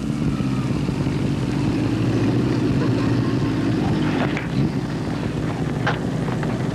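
A motor running with a steady, unchanging drone.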